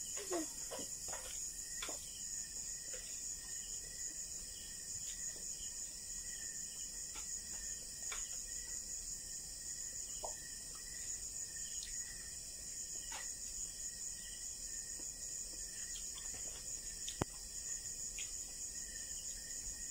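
Steady high-pitched insect trilling, like a cricket chorus, with faint soft clicks and smacks of people eating rice and fish with their hands. There is one sharper click about seventeen seconds in.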